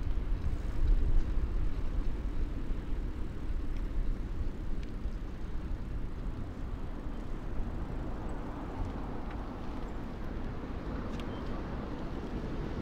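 City road traffic rumbling, mixed with wind buffeting the microphone of a moving bicycle; the rumble is loudest at first and eases over the first few seconds.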